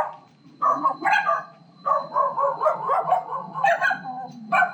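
A pack of dogs barking in repeated loud bursts.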